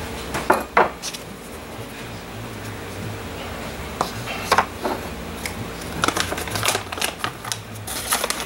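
Sharp taps and clatter of a metal scraper and small containers being handled on a worktable: two knocks about a second in, another near the middle, and a busier run of clicks near the end, over a faint steady hum.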